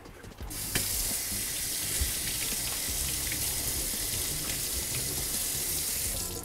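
Kitchen faucet running into a stainless steel sink, water splashing over hands as a freshly iced white perch is rinsed under the stream. The water comes on about half a second in, runs steadily, and stops at the end.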